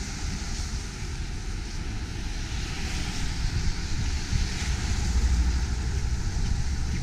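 Road traffic on a wet road, with a car's tyres hissing past about four seconds in. Wind buffets the microphone with a low, uneven rumble that grows stronger in the second half.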